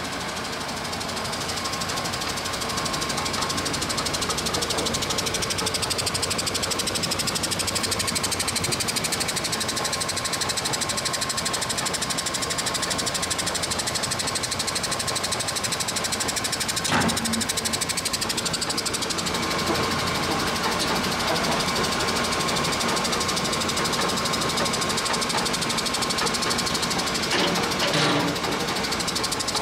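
DoAll 2613-2 vertical band saw running with no load, its band wheel spinning, giving a steady mechanical hum with a faint whine. A sharp knock comes about halfway through and a couple of clunks near the end.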